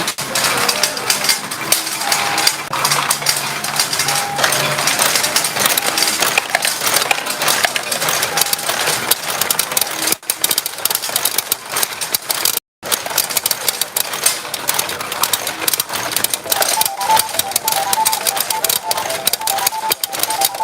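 Retro pachinko machine in play: a dense, continuous clatter of steel balls striking the pins and running through the machine. A short repeating electronic beeping tune from the machine starts about three-quarters of the way through.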